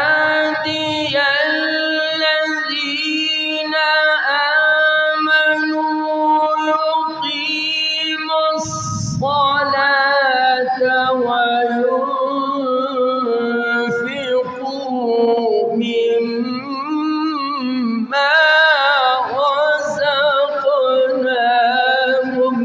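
A man's voice reciting the Quran in a melodic, drawn-out style, holding long ornamented notes that waver and bend in pitch, amplified through a microphone. There is a short break about nine seconds in before the recitation continues.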